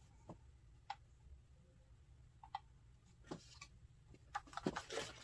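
Faint, scattered light clicks and knocks of hands handling a DJI Mini 2's plastic remote controller, with a quicker run of louder clicks and handling noise near the end.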